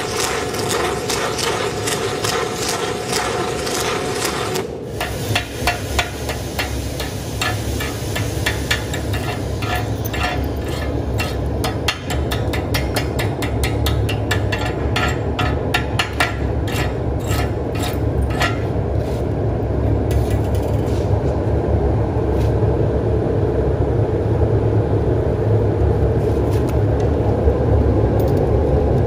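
Stick welding with a 3/4-inch electrode: the arc crackles densely and stops abruptly about five seconds in. Then slag is chipped off the weld bead, a quick run of sharp metallic taps that dies out before the last third, over a steady machine drone that grows slightly louder near the end.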